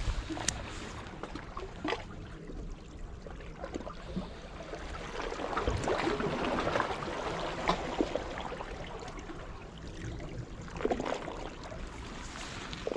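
Wet outdoor ambience of rain and water washing among breakwater boulders, a steady noisy wash that swells for a few seconds in the middle, with scattered small clicks and knocks.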